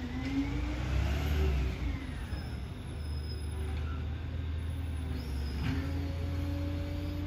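Side-loader garbage truck's diesel engine running as it drives slowly up the street, revving up and easing back off in the first two seconds with a rising then falling whine, then running steadily with a constant whine over the low drone.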